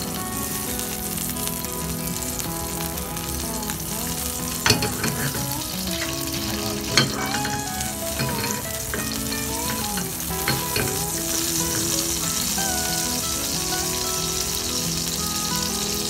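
Butter sizzling as it melts in a frying pan over a low gas flame, the sizzle growing stronger over the last few seconds. Two sharp knocks come about five and seven seconds in.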